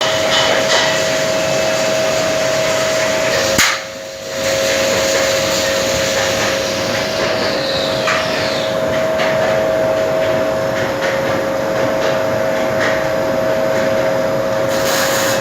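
A 1500 W fiber laser cutting machine running: a steady rushing noise with a steady hum. About four seconds in, a sharp click is followed by a brief drop in the noise.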